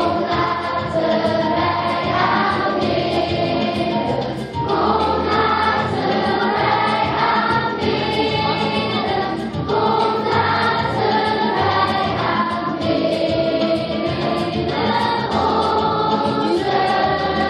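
Children's choir singing a Christmas song over an instrumental backing with a steady bass line.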